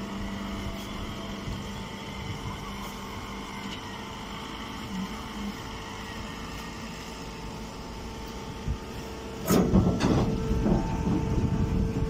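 Steady machine hum from a running hydraulic baler and its motor-driven pump. About nine and a half seconds in, a louder rough scraping and knocking noise starts and carries on.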